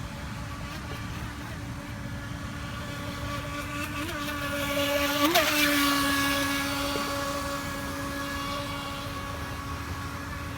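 Electric RC speedboat motor running at speed, a steady whine with overtones that grows louder as the boat passes close about five seconds in, then eases off.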